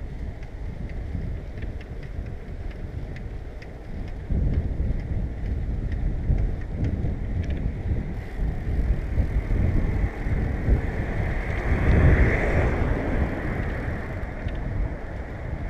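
Wind buffeting the microphone of a camera on a moving bicycle, over road rumble, with a few light ticks in the first seconds. The rush grows louder about four seconds in and swells most around twelve seconds.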